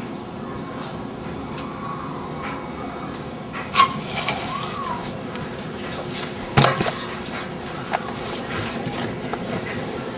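Handling noise: a steady background hiss with a few scattered knocks and clicks, the loudest about six and a half seconds in, while the camera is moved around. A brief chirp that rises and falls comes about four and a half seconds in.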